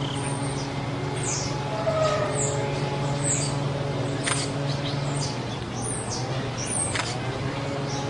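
Small animals chirping: short, high calls that fall in pitch, one or two a second, over a steady low hum.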